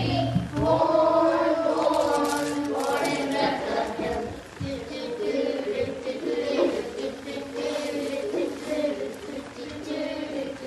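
A group of children singing together as a choir, holding long, drawn-out notes.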